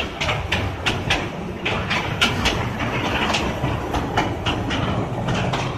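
A mine tour train rolling along its track: a low rumble with the wheels clicking and clattering over the rails, a few sharp clicks a second.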